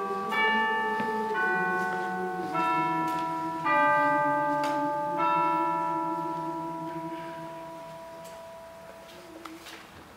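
Bells struck one at a time, five strikes about a second apart, each ringing on with many overtones. After the last strike, about five seconds in, they are left to fade away.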